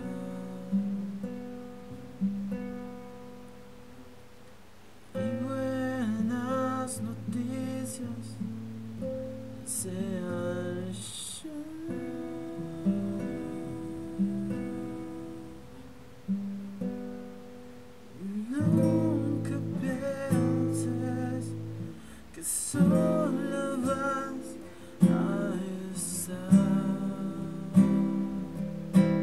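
Acoustic guitar music, plucked and strummed, with a quieter passage a few seconds in before it swells again.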